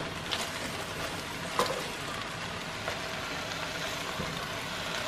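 Steady hiss of vegetables cooking in a pot on the stove, with a few light knocks as bok choy leaves are dropped in.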